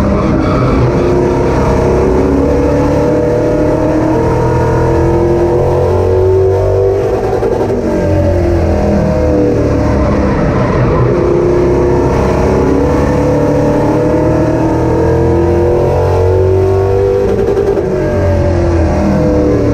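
Race car engines at speed on an oval track, the pitch climbing and dropping again and again as they accelerate and back off.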